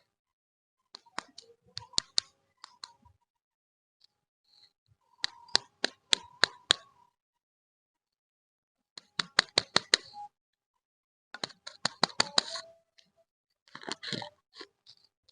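Crinkly plastic candy wrappers crackling as they are unwrapped, in five short bursts of sharp clicks with pauses between.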